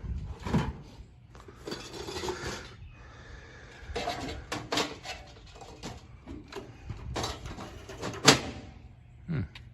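Irregular knocks, clicks and rattles, like things being handled, with one sharp loud knock about eight seconds in.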